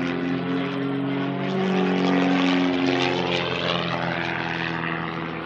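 Pitts aerobatic biplane's piston engine and propeller passing by. It grows louder to a peak a couple of seconds in, then fades as the pitch drops slightly.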